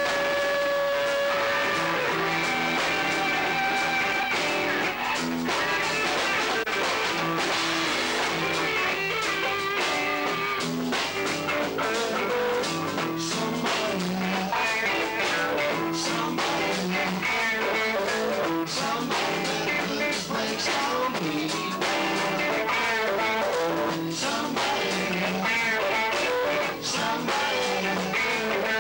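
Live band playing rock: a semi-hollow electric guitar plays held lead notes, with drums hitting steadily from a few seconds in.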